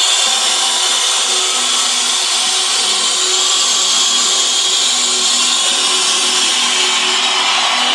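Music playing loudly through a car audio system, picked up by a phone microphone as a harsh, steady, noisy wash with almost no bass.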